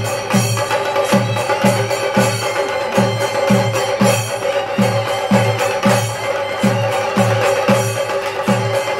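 Live temple-festival percussion: traditional cylindrical drums beating a fast, even rhythm with a deep stroke about twice a second and sharp stick strokes in between, over a steady held tone.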